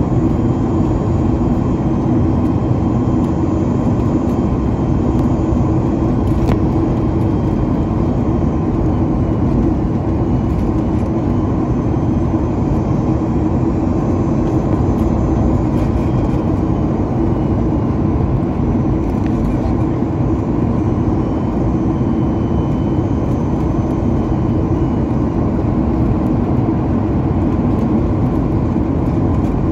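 Steady cabin noise of a Boeing 737 MAX 9 on approach, heard from a window seat over the wing: the airflow and CFM LEAP-1B engines make a constant low noise, with a few faint steady tones above it.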